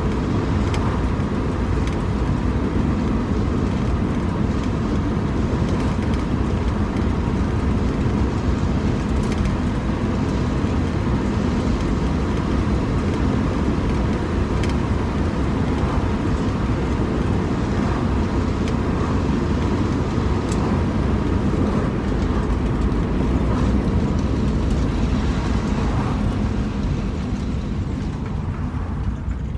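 1949 Ford's flathead V8 running while driving, heard from inside the cabin with the window open, a steady low drone mixed with road and wind noise. It falls away a little near the end.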